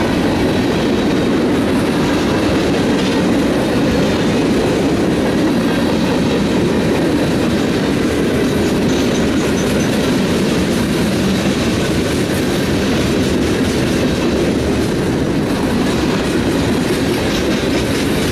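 Freight cars of a passing CSX train rolling by close to the track: a loud, steady rumble of steel wheels on the rails, with a faint high whine.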